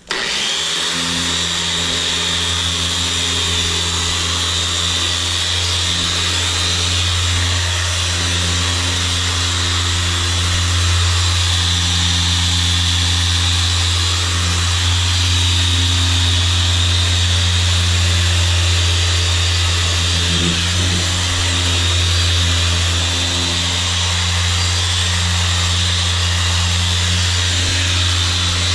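Electric machine polisher starts up and runs steadily, buffing polish into a jet ski's hull, with a strong low hum.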